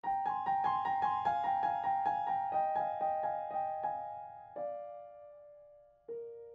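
Soft solo piano music: a run of quick, evenly repeated notes that gives way to a few held notes which ring and fade near the end.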